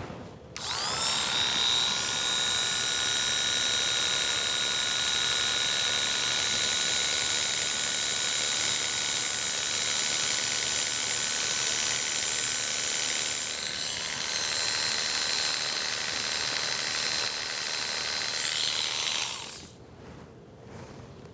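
Electric animal hair clippers switched on, their motor spinning up and then running steadily with a high whine while shaving fur from a dog's paw. They switch off a little before the end.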